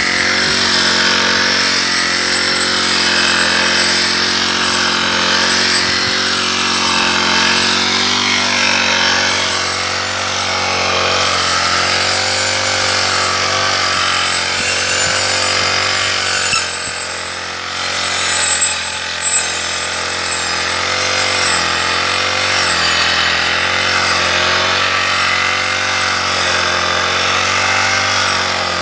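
Brush cutter running steadily as its blade cuts tall grass, the motor's pitch wavering up and down with the load. The level dips briefly around the middle.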